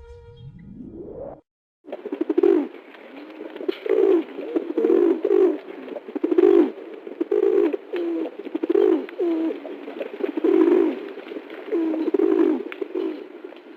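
Pigeon cooing: repeated low, throaty coos in irregular runs. It starts about two seconds in, after a short rising sweep and a moment of silence.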